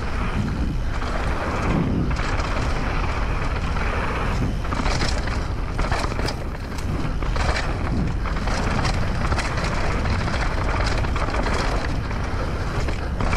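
Mountain bike riding fast down a dirt singletrack: a steady rush of wind on the camera microphone and tyres on dirt, with the bike's chain and parts clattering in many short sharp knocks over the bumps.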